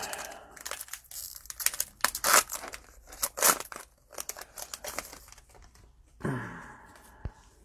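Cellophane wrapper of a trading card pack crinkling and tearing as it is opened, in a run of quick, irregular crackles, with a brief vocal sound near the end.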